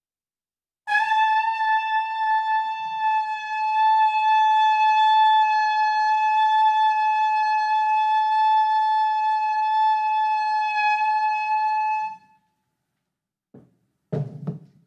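Shofar blown in one long, steady high note lasting about eleven seconds, starting about a second in and cutting off cleanly.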